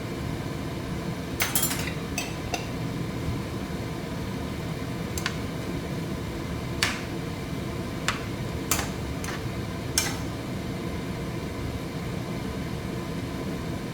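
A utensil clinking against a cooking pot, about nine sharp clinks at irregular intervals, over a steady low hum.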